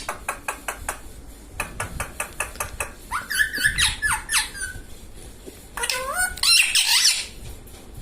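Indian ringneck parrot giving squeaky calls that slide up and down in pitch, in two bouts after the middle. Before them come two runs of quick sharp clicks as its beak works at a piece of roti.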